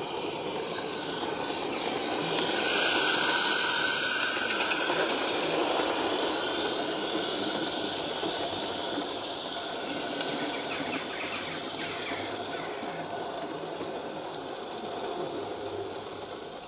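Garden-scale live-steam locomotive passing with a train of vans, its steam hissing, loudest a few seconds in and then slowly fading as it runs away.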